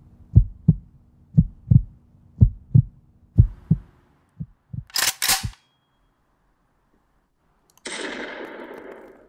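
Heartbeat sound effect: low double thumps, lub-dub, about once a second for the first four seconds. About five seconds in come sharp cracks like a rifle shot, then after a short silence a loud rushing burst of noise that fades away near the end.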